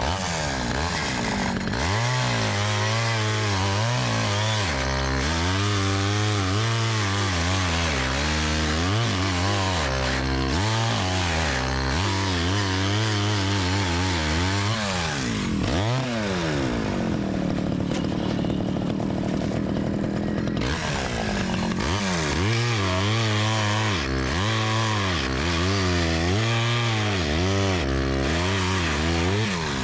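Two-stroke chainsaw cutting through charred timber beams, its engine pitch rising and falling as the chain bites. About halfway through, the pitch climbs and holds steadier for a few seconds, then the wavering cutting sound returns.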